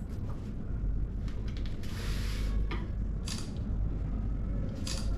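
Room noise: a steady low hum, with a short hiss about two seconds in and brief sharp rustles about three and five seconds in.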